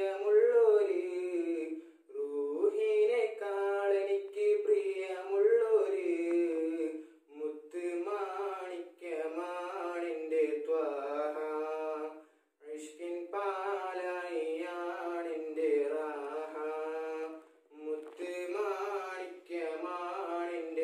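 A young male voice singing an Islamic devotional song unaccompanied, in long wavering phrases about five seconds each with short breaths between.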